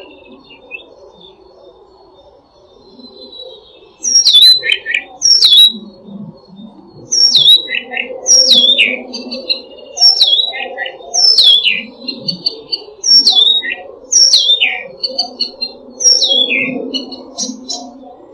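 A songbird singing the same short phrase over and over, starting about four seconds in: each phrase is a loud whistle sliding down in pitch, followed by a few lower notes, about every second and a half. A steady low rumble runs beneath.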